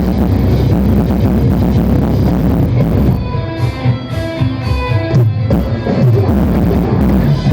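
Live rock band playing a song with guitar and drums. About three seconds in the full sound thins out to a few clear held notes, and the full band comes back in about three seconds later.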